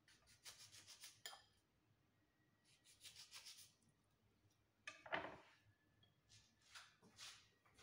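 Faint scratchy strokes of a kitchen knife cutting a lemon into quarters on a wooden cutting board. About five seconds in comes a sharper knock, then soft rubbing as the cut lemon is handled on a ceramic plate.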